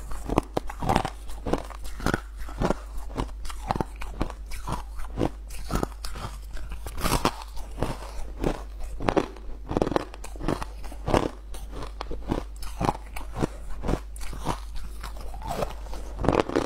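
Teeth biting and chewing clumps of crushed ice, close to a collar-clipped lapel microphone: a dense run of sharp, irregular crunches, a couple or so a second, with a steady low hum underneath.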